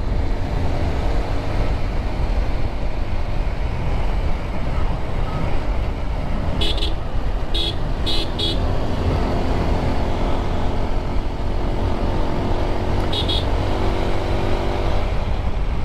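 Motorcycle engine running steadily while riding at road speed, mixed with a heavy low rumble of wind on the microphone. A few short high chirps sound in quick succession around the middle, and again briefly near the end.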